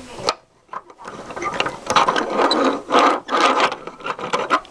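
Clattering and clicking of small toy cars being handled and moved about, in dense bursts that start about a second and a half in.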